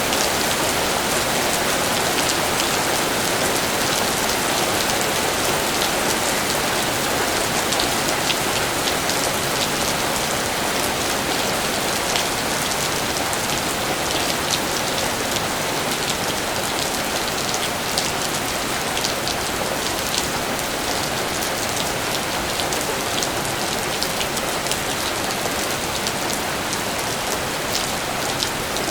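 Steady rain falling, a dense even hiss scattered with many small sharp drop ticks.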